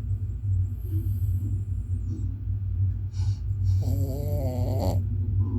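A small dog snoring. About four seconds in, a brief wavering pitched sound, like a voice, comes over it.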